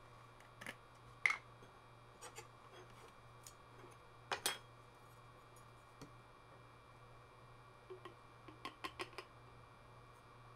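Scattered light clicks and clinks as a plastic bottle cap is twisted off and a metal measuring spoon taps and scrapes a glass bowl, scooping out aloe vera gel. The sharpest clink comes about four and a half seconds in, and a quick run of small taps comes near the end.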